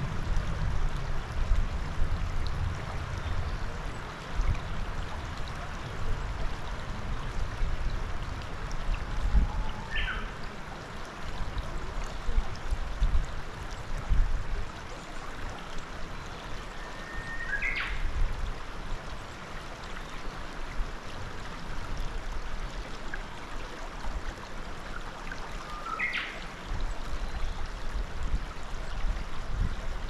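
Shallow mountain river running steadily over a stony, gravel bed. A bird calls three times, once about every eight seconds, each a short call with a quick sweep in pitch.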